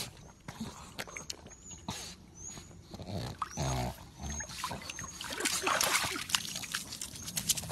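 A pug in pool water close to the microphone, making short snuffling noises and one low grunt about halfway through, with water splashing.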